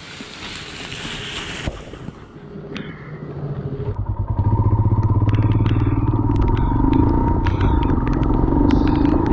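Royal Enfield Himalayan's single-cylinder engine pulling away: a brief hiss gives way to the engine's pulsing beat, which builds and settles into a steady, louder run from about four seconds in, with scattered sharp clicks over it.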